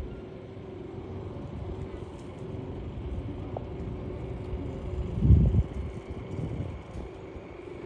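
Outdoor low rumble of wind on the microphone with a faint steady hum, swelling louder for about half a second about five seconds in.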